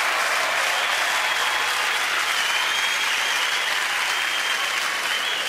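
Live theatre audience applauding, a steady dense clapping that eases off slightly near the end.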